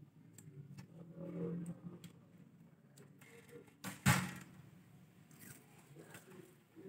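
Fingers handling the slackened strings and nut of a Squier bass: faint rubbing and small clicks, with one sharp snap about four seconds in.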